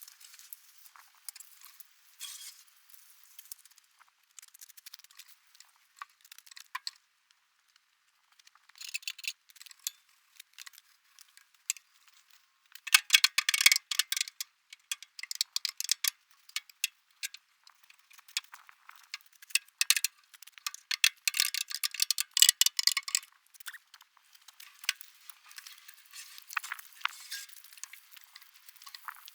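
Stiff brush scrubbing an old metal toolbox under water from a garden hose, in irregular bursts of scratching and splashing that are heaviest in the middle.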